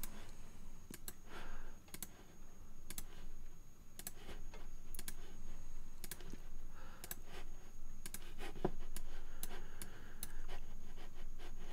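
Irregular sharp clicks of a computer mouse, some in quick pairs, as files are picked one after another.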